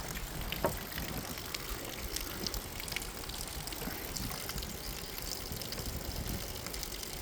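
Steady rain during a thunderstorm, a continuous hiss with faint scattered drop ticks, and wind rumbling on the microphone.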